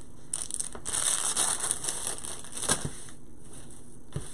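Clear plastic bag crinkling and rustling as a craft pick is handled, in a run of rustles lasting about three seconds with one sharp crackle near the end of it. A soft knock follows near the end.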